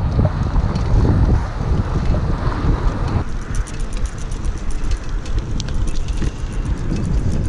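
Wind buffeting the microphone: a steady low rumble, with faint rapid ticking through the second half.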